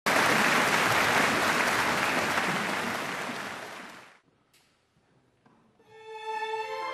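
Audience applause that fades away over about four seconds, then a brief hush. Near the end the orchestra comes in with held notes.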